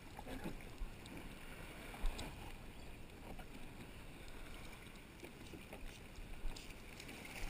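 Water lapping and splashing against a plastic sit-on-top kayak's hull, with light wind on the microphone and a few small knocks, the loudest about two seconds in.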